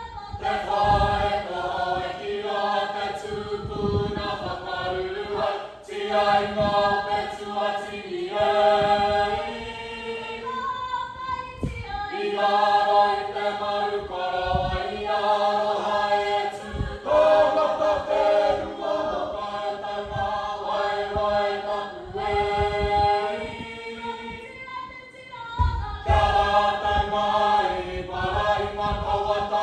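A choir of voices singing together a cappella in held chords, phrase after phrase with short breaks between them.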